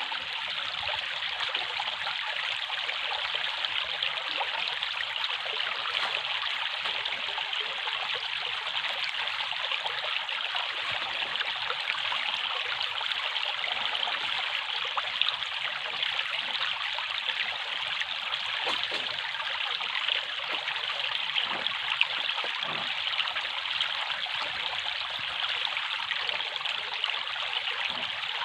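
Running water trickling and splashing steadily, a continuous even rush with small irregular drips and splashes.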